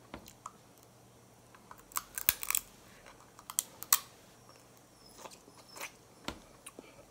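Snow crab leg shell bitten and cracked between the teeth, with chewing: a scatter of short, sharp crunches and clicks, bunched about two seconds in, again near four seconds, and near the end.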